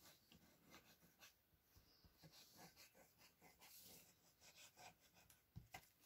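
Near silence, with faint rustles and small taps of paper being handled and pressed flat by hand on a cutting mat, and a couple of soft knocks near the end.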